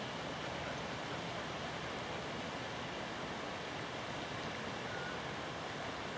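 Steady, even rushing noise with no bird calls or other distinct sounds.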